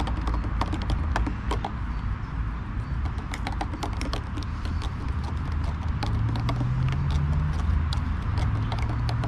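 Metal spoon stirring a drink in a stainless steel camping pot, clinking against the inside in many quick, irregular taps, over a low steady rumble.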